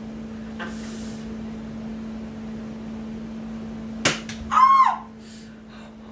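A Bug-A-Salt salt-shooting gun fires once at close range into the neck, a single sharp snap about four seconds in, followed at once by a short, loud yelp from the woman who is hit.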